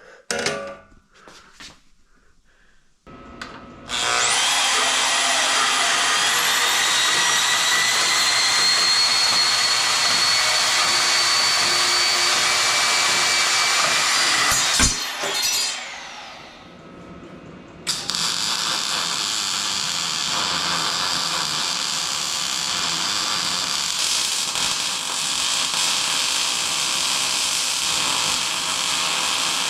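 Power tool running in two long stretches of about ten seconds each, the first with a high whine that rises slightly as it runs.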